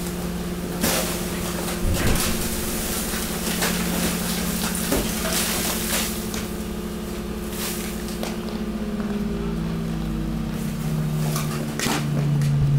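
Hydraulic garbage press running, its pump giving a steady hum that drops in pitch in steps in the second half. Over it, garbage and plastic bags crackle and knock as the load is compacted.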